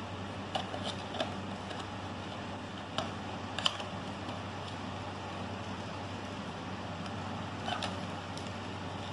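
A small cardboard toy box being opened and its wrapper handled by hand: a few short crinkles and clicks, clustered around one second in, three to four seconds in and near the end, over a steady low hum.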